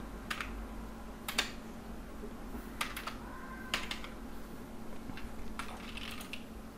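Computer keyboard and mouse clicks: about half a dozen separate taps, irregularly spaced, over a faint steady hum.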